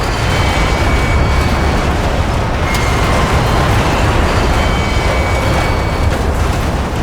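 Train crash sound effect: a heavy, continuous rumble of wreckage, with faint high tones that come and go.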